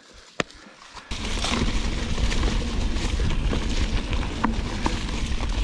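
A mountain bike rolling down a dirt trail: wind buffeting the camera microphone and tyres rumbling over the ground. The rumble starts abruptly about a second in after a near-quiet moment, with a few sharp clicks from the bike.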